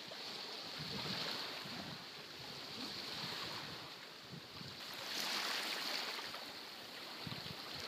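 Small waves washing onto a sandy shore, a soft hiss that swells and eases every couple of seconds.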